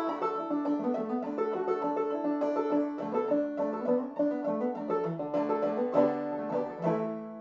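Open-back banjo played clawhammer style: a steady run of plucked melody notes and brushed strums in an old-time tune, in the key of D with the banjo tuned aDADE.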